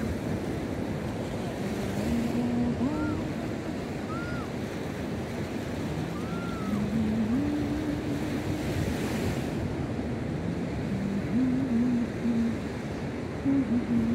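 Ocean surf washing on a sandy beach, a steady rush of waves with some wind on the microphone. Faint pitched sounds waver in the background, with three short rising-and-falling chirps in the first half.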